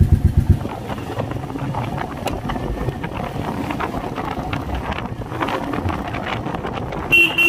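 Royal Enfield single-cylinder motorcycle pulling away, its engine pulses in the first moment giving way to steady wind noise on the microphone as it rides. A short beep sounds near the end.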